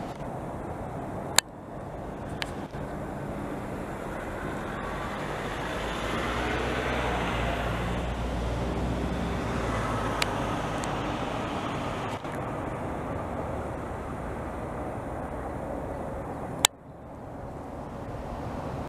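Outdoor road traffic: a vehicle's engine hum swells around the middle and fades again over a steady background of traffic noise. Two sharp clicks stand out, about a second and a half in and near the end.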